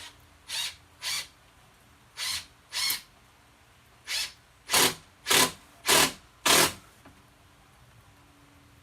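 Impact driver driving 2-inch wood screws into a wooden chair in nine short trigger bursts. The last four bursts are louder as the screws seat.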